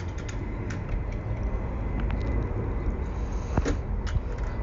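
Low, steady rumble of an easyJet airliner's jet engines, with a few light clicks over it.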